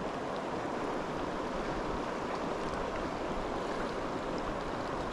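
Shallow mountain creek running over rocks: a steady, even rush of water.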